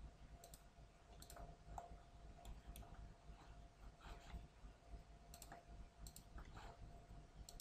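Faint computer mouse clicks, a dozen or so at irregular intervals, over a low steady electrical hum.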